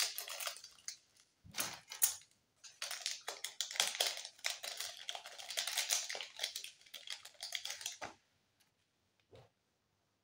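Small clear plastic packet crinkling and rustling as it is cut open with scissors and worked open by hand, with a few sharper snips and ticks. It stops about eight seconds in, and a single soft knock follows.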